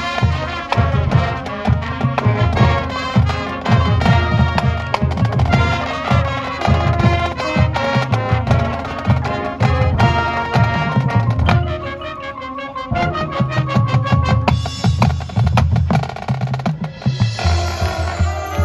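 Marching band playing: brass over the drum line's rhythmic beat, with the low drums dropping out briefly about twelve seconds in before the full band comes back.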